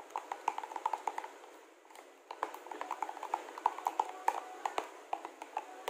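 Stirring a thick mayonnaise-and-cream garlic sauce in a plastic container: quick, irregular clicks and taps of the utensil against the sides, pausing briefly about two seconds in.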